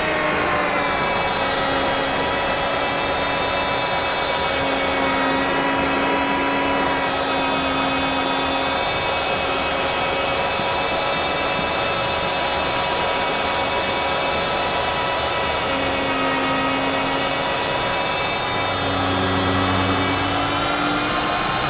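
AUTOMAB 350 magnetic-base drill's motor cutting a hole overhead with an annular cutter under automatic feed: a steady whine that drops in pitch about a second in as the cutter loads up in the steel, then starts rising again near the end as the load eases.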